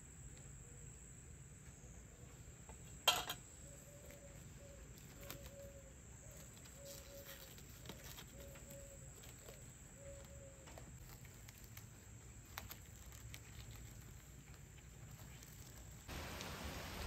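Faint outdoor ambience: a steady high cricket trill, a single sharp knock of the wire whisk about three seconds in, and a soft low call repeated about six times. Near the end steady rain comes in.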